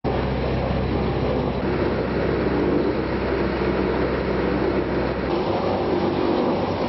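Heavy machinery at work, a trommel screen being fed by a wheel loader: a steady low diesel engine hum under a dense rumble of material being dumped and tumbled. About five seconds in the low hum drops away while the rumble goes on.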